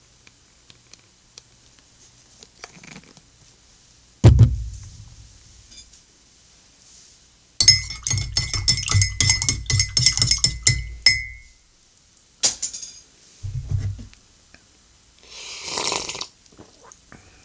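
Metal spoon stirring honey into a mug of coffee: a rapid run of clinks against the mug, lasting about three and a half seconds, with a dull knock before it and another after. Near the end comes a noisy sip of the coffee.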